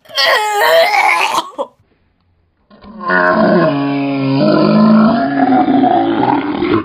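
A boy with a mouthful of foaming toothpaste lets out a loud, wavering open-mouthed cry. After a short pause he gives a long, deep, steady groan of about four seconds.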